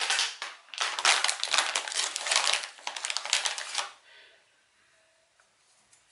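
Thin plastic crinkling and rustling as it is handled, in a dense crackly burst lasting about three seconds and dying down near the middle.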